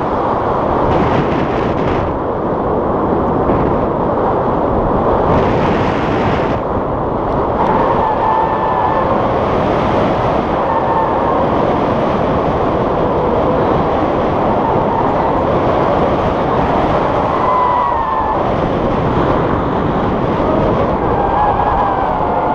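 Airflow of paraglider flight buffeting a GoPro's microphone: loud, steady wind noise. A few faint, brief pitched sounds show through it now and then.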